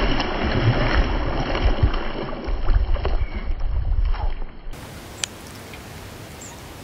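A hooked fish thrashing at the water's surface, an uneven run of splashes and slaps as it is fought on the rod. About four and a half seconds in, a cut leaves only quieter outdoor background with a few faint ticks.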